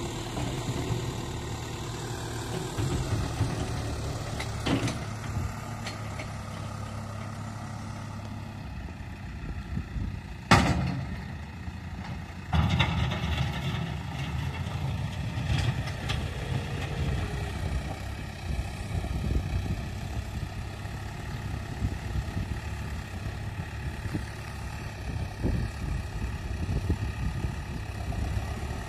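Farm tractor's diesel engine running steadily while it works a front-end loader through earth and rock. A single sharp, loud clank comes about ten seconds in, with another knock a couple of seconds later and a few lighter clicks.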